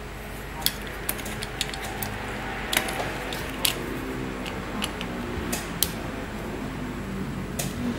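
Irregular sharp clicks and taps of small plastic parts being handled on a Wacom tablet mouse, about a dozen in all, over a steady low hum and a faint background soundtrack.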